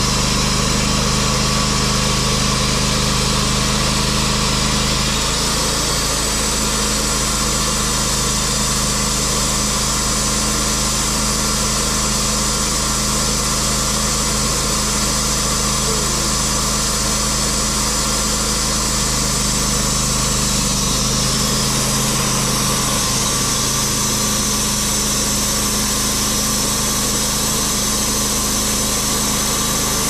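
Bandsaw sawmill's gas engine running steadily under load as the blade cuts along a red oak log. The engine note shifts slightly about five seconds in and again near the end.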